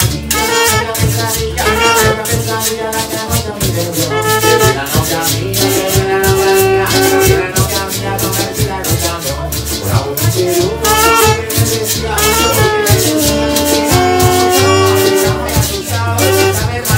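Cumbia band playing live: a quick, even percussion beat under a steady upright double bass line, trombone and other held melody notes, and a singer on a handheld microphone.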